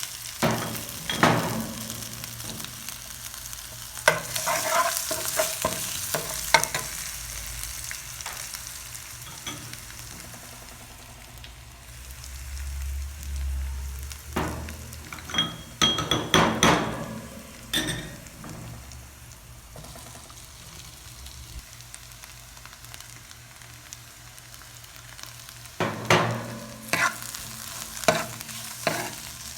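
Bread pakoras frying in hot oil with a steady sizzle. A cooking utensil knocks and scrapes against the pan in several short bursts as the pakoras are stirred and turned.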